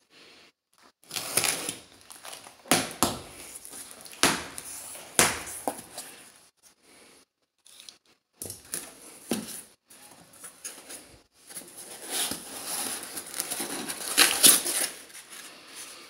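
A cardboard box being opened by hand and its packaging pulled out: irregular tearing, rustling and crinkling, with a few sharp knocks of handling.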